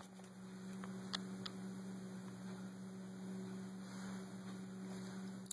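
Steady low electrical hum over faint background hiss, with a couple of faint ticks about a second in.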